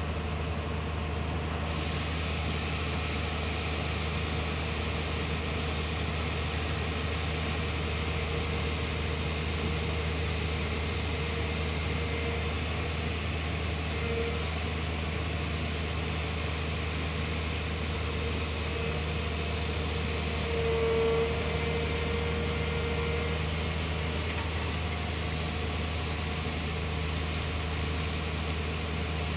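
Diesel engine of a Watermaster amphibious dredger running steadily, a low even hum with a faint higher whine that swells briefly a few times and is loudest about two-thirds of the way through.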